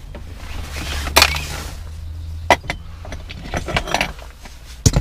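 Hands working inside a car dashboard: a rustle about a second in, then a few sharp clicks and knocks of plastic trim and small parts, the loudest near the end, over a steady low hum that stops about halfway.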